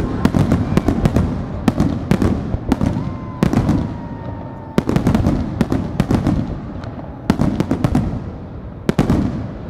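Aerial firework shells bursting in quick succession, with sharp bangs every half second to a second, several coming in tight clusters. A dense rumbling echo fills the gaps between them.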